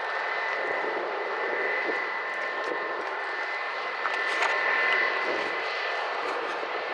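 Airbus A320's IAE V2500 turbofan engines running as the airliner rolls along the runway. It is a steady rushing noise with a high, even whine, a little louder about four to five seconds in.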